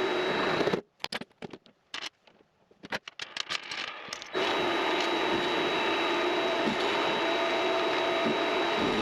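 Vevor MX400 mini lathe running steadily with a thin high whine over its motor noise. About a second in the sound cuts off abruptly, leaving a few seconds of scattered light clicks and taps, then the running sound comes back just as suddenly and holds steady.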